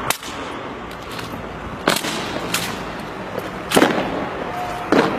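Rifle drill by a squad of soldiers: five sharp, unevenly spaced cracks of the drill movements over a steady hiss.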